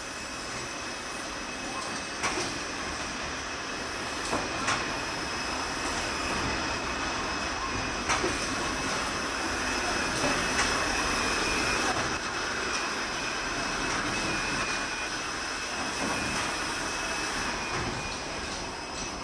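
Automatic pillowcase sewing machine running: a steady mechanical clatter and hum with a faint high whine, and a few sharp clicks in the first half.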